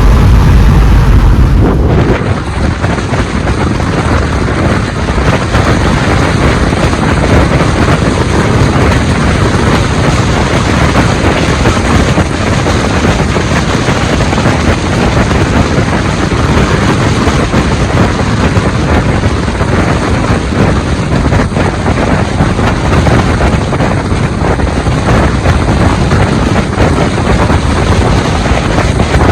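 Loud, steady wind rush and road noise from a moving vehicle, buffeting the microphone. The sound changes about two seconds in and then holds steady.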